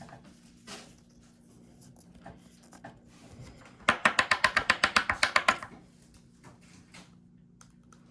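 Pokémon trading cards being handled, with a few faint clicks, then a quick run of about a dozen crisp flicks in under two seconds, like a stack of cards being thumbed or riffled through. A steady low hum runs underneath.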